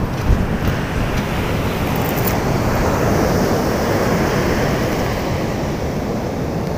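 Surf washing onto the beach in a steady roar of breaking waves, with wind on the microphone; a single thump sounds just after the start.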